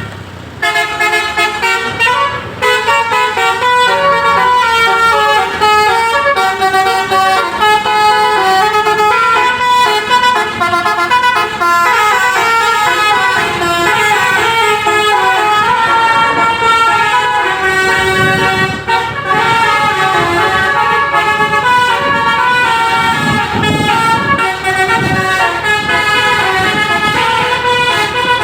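Basuri multi-tone 'telolet' bus horn playing a long melody of stepped, overlapping notes, several pitches sounding at once, with bursts of low noise under it in the second half.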